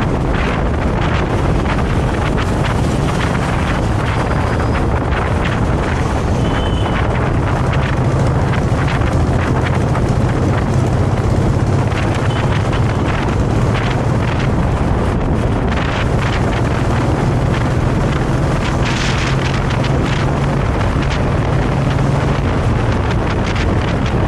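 Wind buffeting the camera microphone on a moving Royal Enfield Classic 350 motorcycle, loud and continuous. Under it runs the steady low note of the bike's single-cylinder engine at an even cruising speed.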